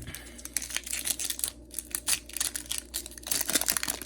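Trading-card booster pack wrapper crinkling and rustling as it is handled and opened by hand, with a run of dense crackles near the end.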